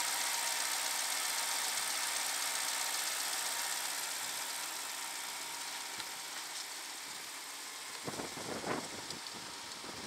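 1999 Rolls-Royce Silver Seraph's 5.4-litre V12 idling with the hood open. It is heard as a smooth, steady whir and hiss with a faint whine and hardly any low rumble, and grows fainter over the second half. A few soft scuffs come near the end.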